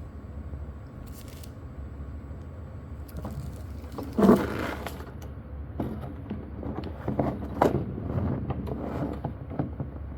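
Handling noises of items being unpacked by hand: a sharp knock or rustle about four seconds in, then a run of irregular light clicks and scrapes, over a steady low hum.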